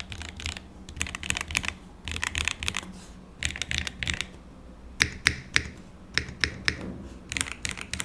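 Typing on the Kwumsy K3 mechanical keyboard: short bursts of quick keystrokes about a second apart. Its key sound is dampened, not that noisy.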